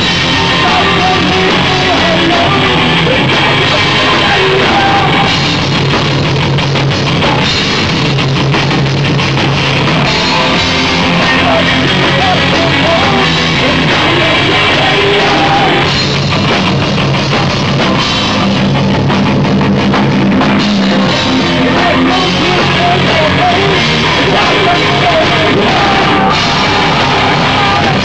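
Live rock band playing loud: electric guitars, bass guitar and drum kit together in a steady, unbroken rock song.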